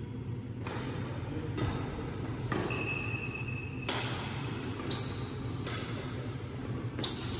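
Badminton rally: rackets strike the shuttlecock back and forth, about one sharp hit a second, each ringing briefly in the large hall. The hardest hits come near the end.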